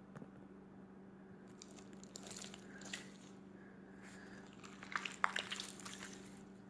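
Faint scattered clicks and small wet-sounding crackles over a steady low hum, with a brief cluster of them about five seconds in.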